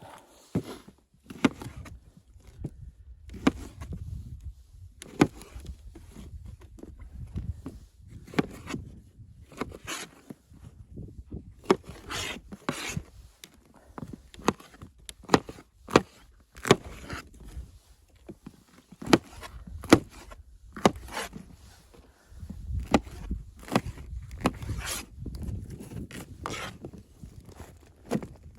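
Irregular series of sharp knocks and clicks, some in quick clusters, over a low rumble.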